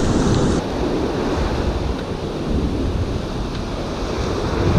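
Sea surf breaking and washing up a sandy beach, with steady wind buffeting the microphone.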